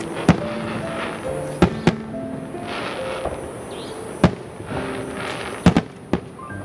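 Fireworks bursting: about seven sharp bangs at uneven intervals, two close together near the end, with music playing underneath.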